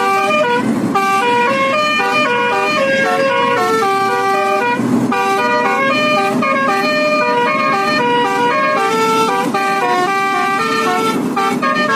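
Bus telolet horn (Basuri multi-trumpet musical horn) playing a continuous melody, its notes stepping up and down in quick succession.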